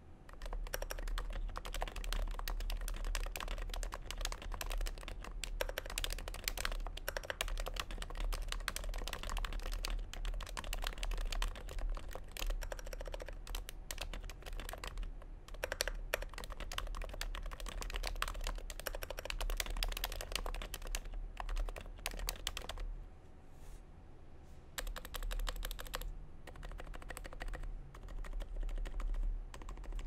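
Typing on a Norbauer Norbatouch keyboard, its lubed Topre switches fitted with silencing rings under MT3 keycaps: a steady, dense run of keystrokes with a short lull about three quarters of the way through. On the upstroke there is a high-pitched note, which the builder suspects comes from overlube or the 45 g domes.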